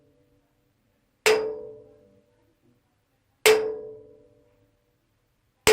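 A metal wardrobe struck twice, each hit ringing with a clear tone that dies away over about a second; a third strike lands right at the end.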